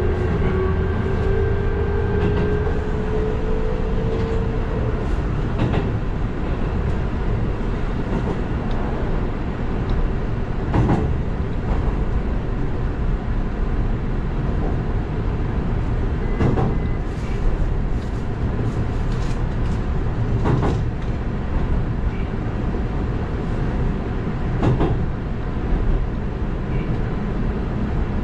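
Electric commuter train running on the rails, heard from inside the driver's cab: a steady rumble of wheels and running gear. A rising motor whine plays in the first few seconds as the train gathers speed. Sharp knocks from the wheels come every four to five seconds.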